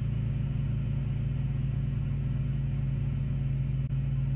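First-generation Chevrolet Colorado engine idling steadily, heard from inside the cab, with a faint click near the end.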